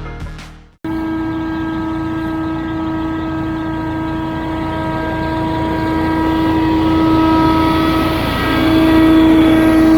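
Engine-powered lawn machine running with a steady, high whine that starts abruptly about a second in and gets louder toward the end.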